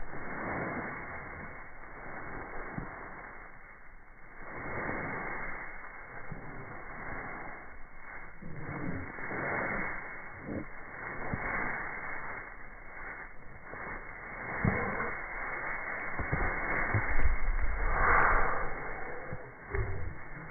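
Slowed-down, muffled outdoor noise from a slow-motion phone recording: a rustling hiss with scattered dull low thumps, loudest about three-quarters of the way through.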